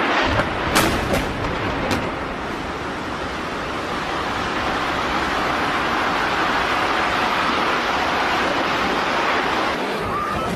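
Loud rushing roar of a large explosion and fireball, with a few sharp cracks about a second in.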